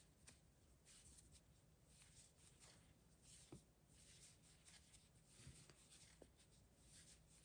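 Near silence, with faint, irregular rustling of a crochet hook pulling chenille (velvet) yarn through stitches.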